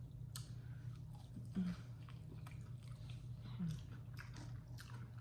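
Close-miked chewing, with scattered short wet mouth clicks and smacks.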